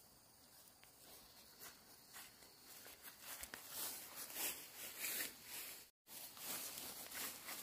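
A string of soft, irregular rustling and scraping noises that grows busier partway through, with a brief dead gap about six seconds in.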